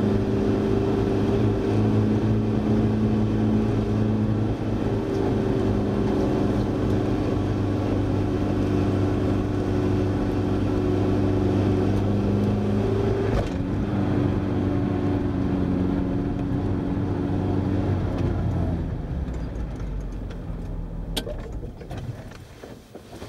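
Car engine running at steady revs, heard from inside the cabin, with a short knock and a slight drop in pitch about thirteen seconds in. Over the last five seconds the engine sound fades away.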